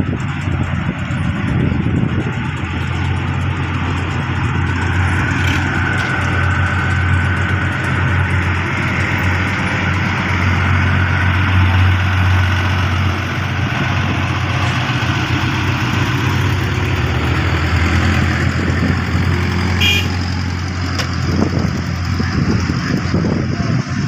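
Diesel engine of a pneumatic-tyred road roller running steadily with a low hum as the roller moves over freshly laid asphalt. A brief sharp click comes near the end.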